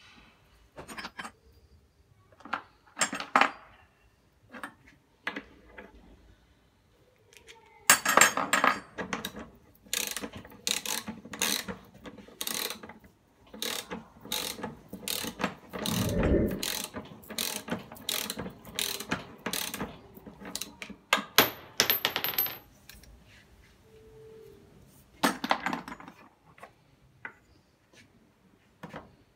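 Metal clicks and clinks of brass and steel air-line fittings and wrenches being handled and screwed together on a wooden workbench: a few at first, then a quick run of sharp clicks through the middle with one dull thump, and a few more near the end.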